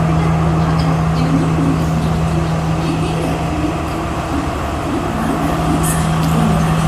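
Diesel train idling while standing, a steady unbroken low hum over a broad mechanical noise.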